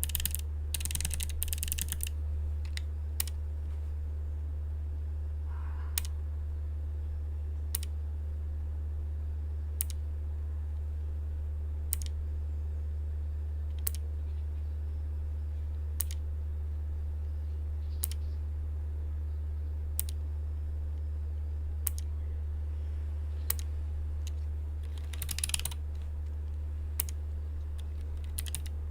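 Keys on a Keychron K1 low-profile mechanical keyboard with blue switches clicking. There are short flurries of presses near the start and again near the end, and between them single sharp clicks about every two seconds, as the backlight effects are stepped through one by one. A steady low hum runs underneath.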